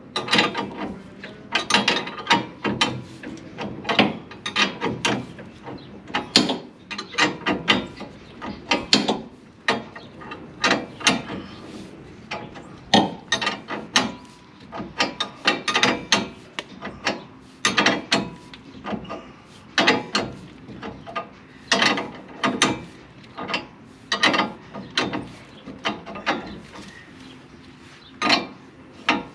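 Hand ratchet wrench clicking in short bursts of strokes, again and again, as bolts are run in.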